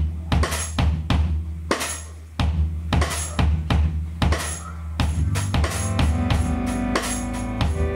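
Live band music: a drum kit playing a steady groove over a deep sustained bass. Sustained keyboard chords come in about five seconds in.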